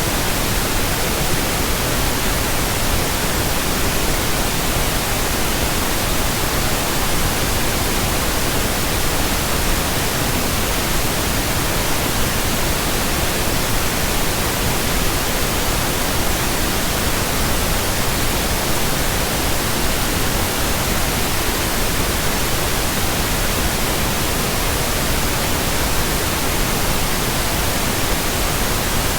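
Steady pink noise: an even, unchanging hiss across the whole range of pitch.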